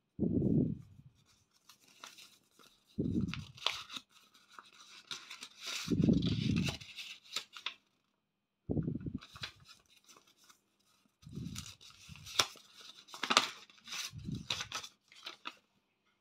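Paper red envelopes and a banknote being handled: crisp rustling and crinkling of paper, with about six dull low thumps spaced a few seconds apart.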